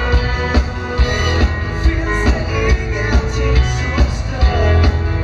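A dansband playing live through a PA: drum kit keeping a steady dance beat under bass, guitars and keyboard.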